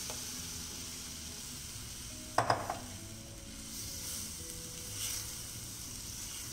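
Milk, ghee and milk-powder batter sizzling in a preheated pan while a silicone spatula stirs it, with one short, sharper sound about two and a half seconds in.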